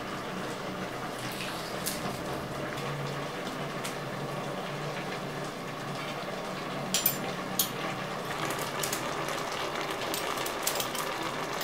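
A metal pot of green vegetables simmering steadily on the fire, with a few sharp clicks of a metal spoon against the pot from about seven seconds in.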